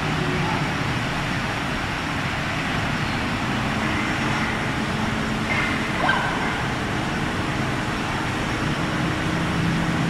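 Steady industrial noise of a steel converter shop, beside a tilted converter with glowing contents. A short sharp knock comes about six seconds in.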